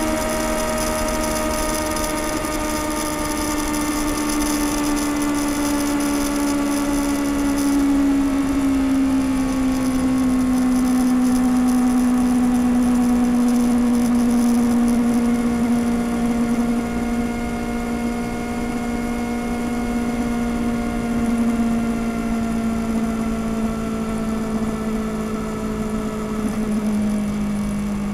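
2021 Kawasaki Ninja ZX-6R's 636 cc inline-four on its stock exhaust, running steadily at highway cruise. Its note slowly drops in pitch as the engine speed eases off.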